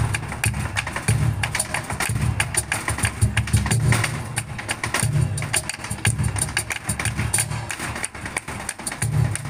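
Flamenco percussion: a dancer's rapid zapateado footwork, heels and toes stamping the stage in a dense run of sharp strikes and low thuds, together with palmas hand-clapping and cajón.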